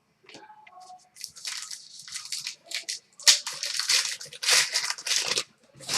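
Hockey trading-card pack wrapper being torn open and crinkled by hand: a string of short crackling rips and rustles starting about a second in.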